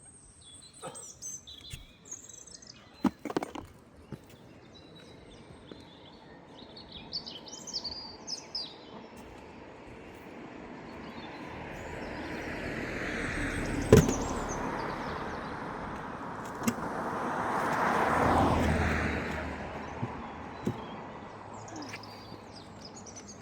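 Birds chirping outdoors, with two slow swells of rushing noise that build and fade over a few seconds each. One sharp clunk comes about halfway through.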